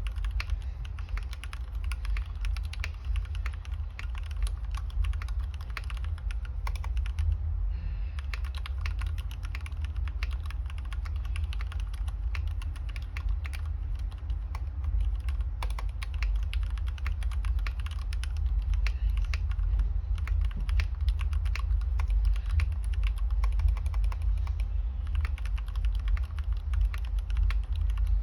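Fast, continuous typing on a 61-key mechanical keyboard with lubed Gateron Yellow linear switches, an aluminium plate and case, and Cherry-profile keycaps: a dense run of keystroke clacks, with a short pause about seven and a half seconds in. A steady low hum runs underneath.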